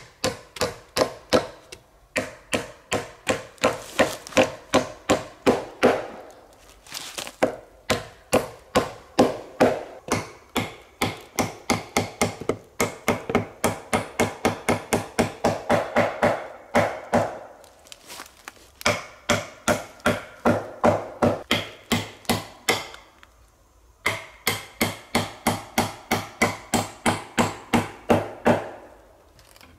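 Hammering on wood: sharp, evenly paced blows several times a second, in runs broken by short pauses, as split logs are fixed onto a log shelter's gable.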